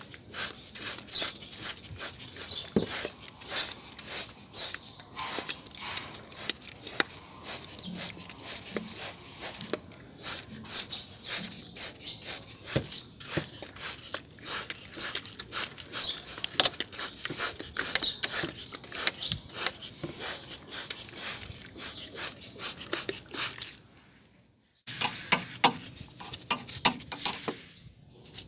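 Paintbrush bristles scrubbing wet, soapy engine-bay parts: a dense, irregular run of quick scratchy strokes, broken by a brief silence near the end.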